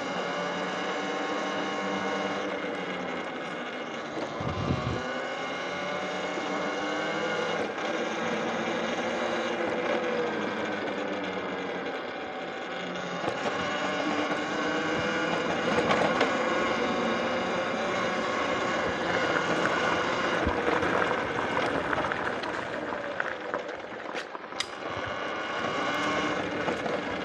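Talaria electric dirt bike's motor and drivetrain whining while riding, its pitch sliding up and down as the bike speeds up and slows, with wind hiss over the microphone. A few sharp knocks from the bike going over bumps come near the end.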